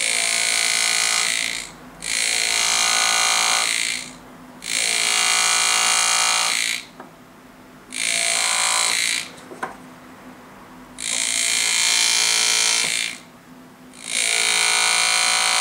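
Pneumatic GraverMax engraving handpiece buzzing in six bursts of about two seconds each with short pauses between, as a square-point graver cuts shallow outline strokes into a gold signet ring.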